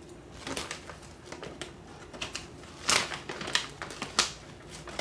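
Plastic snack packaging crackling and crinkling in irregular bursts as it is handled and opened, loudest about three seconds in.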